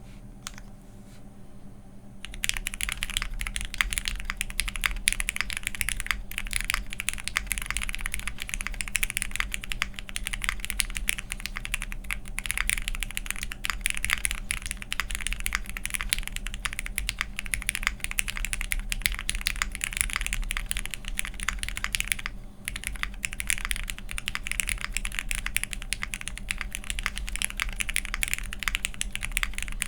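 Typing test on a Crucible65 mechanical keyboard with lubed and filmed Cherry MX Black Hyperglide switches on an aluminium plate and GMK keycaps, unmodified. Steady, fast typing begins about two seconds in and stops briefly about three-quarters of the way through.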